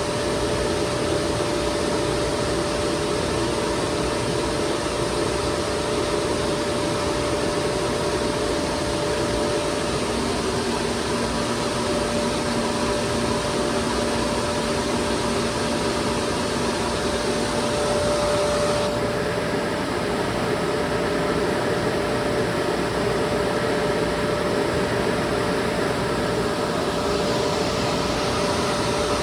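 FMC M10000 air-conditioning unit running: a steady rush of blown air and machinery with a constant hum. About two-thirds of the way through, the high hiss eases a little and a faint high whine comes in for several seconds.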